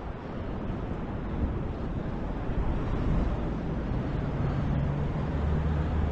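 Traffic noise: a motor vehicle running close by, with a steady low engine hum in the second half.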